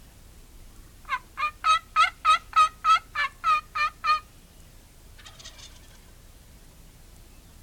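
A series of about eleven loud turkey yelps, roughly three a second, each note dropping and rising in pitch, followed about a second later by a fainter, shorter burst of calling.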